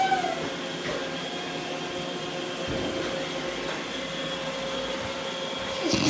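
Roomba robot vacuum running: a steady whir with a constant hum and a high whine.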